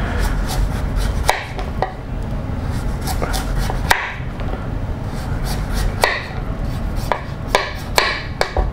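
A chef's knife cutting the hard rind off a butternut squash: scraping strokes through the skin, with a sharp knock each time the blade reaches the cutting board, irregularly every second or two, over a steady low hum.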